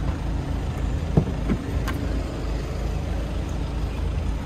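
Steady engine and road noise of a Mahindra Thar driving on the highway, heard from inside the cabin, with a couple of light knocks between one and two seconds in.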